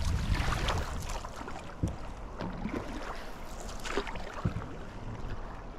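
Canoe moving down a river: water splashing and lapping against the hull, with a few sharp knocks, and wind on the microphone.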